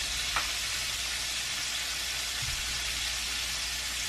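Food frying in a pan on the stove, a steady sizzle.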